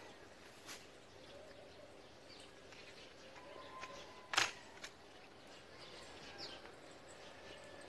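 Quiet open-air background with faint bird chirps, and one sharp click about four and a half seconds in, followed by a fainter tick.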